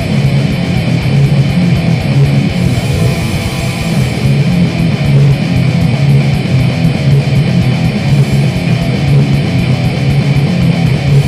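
Grindcore music: heavily distorted electric guitar and bass played loud and dense, with fast drum hits throughout.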